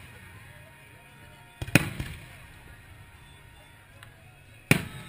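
Aerial fireworks shells bursting: a quick pair of bangs about a second and a half in, and another loud bang near the end, each trailing off in an echo.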